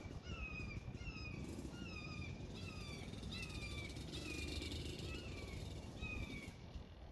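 A bird calling over and over, a short falling whistled note about twice a second, stopping near the end, over a low outdoor rumble.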